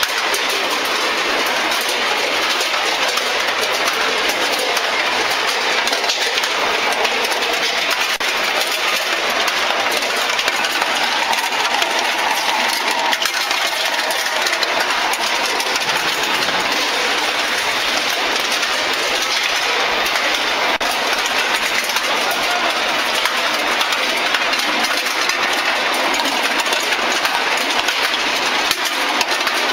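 Steel grinding balls clattering steadily as they roll and knock through a steel cage conveyor and a turning perforated drum, fresh from a skew rolling mill, with factory machinery running underneath.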